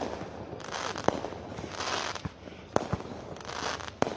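Fireworks going off: sharp bangs about a second or so apart, with stretches of hissing crackle between them.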